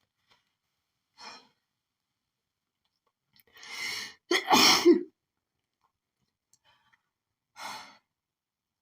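A woman sneezes once in a pollen-allergy sneezing fit: a quick gasping inhale about three and a half seconds in, then a loud sneeze. Short breaths come a second in and near the end.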